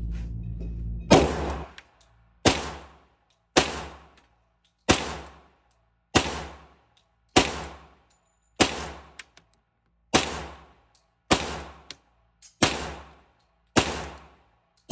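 Glock 21 .45 ACP pistol in a micro conversion kit firing slow, steady single shots, about one every second and a quarter, eleven or so in all, each shot followed by a short ringing echo. The first shot comes about a second in.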